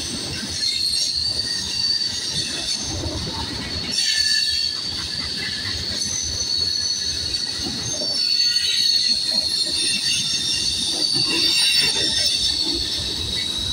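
A freight train's cars rolling past with steel wheels squealing against the rails: steady high-pitched squealing that swells and fades, over the rumble and clatter of the cars.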